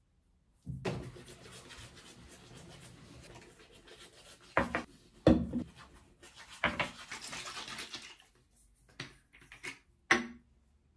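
Hands rubbing over the face, then toiletry bottles and a cosmetic jar knocked and set down on a bathroom counter several times, the loudest knock about five seconds in.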